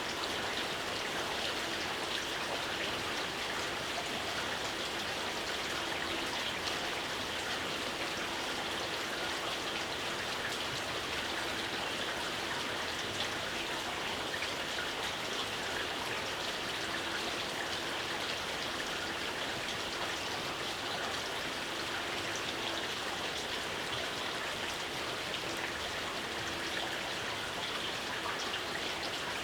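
Steady, gentle rain falling, an even hiss of many drops with no change in strength.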